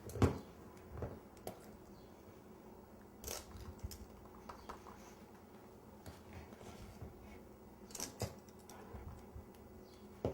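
Utensil scraping and tapping while softened ice cream is packed into molds: a few scattered light knocks and clicks.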